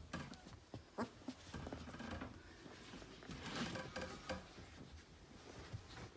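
Faint rustling and scratching of 17-day-old Labrador puppies crawling over the bedding sheet, with small scattered clicks and a longer rustle about three and a half seconds in.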